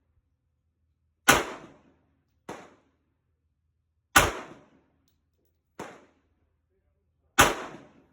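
Three shots from a Glock 48 9mm pistol, fired about three seconds apart, each followed a second or so later by a fainter sharp crack.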